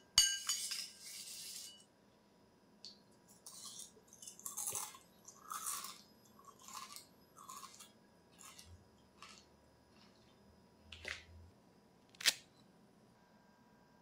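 A metal spoon clinks and scrapes in a ceramic bowl, then a run of short, crisp crunches as food is chewed, with a single sharp click near the end.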